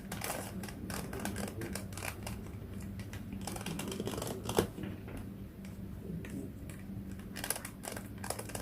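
A 3x3 Rubik's cube being twisted by hand: a quick run of plastic clicks and rattles as its layers turn, with a sharper knock about four and a half seconds in, over a steady low hum.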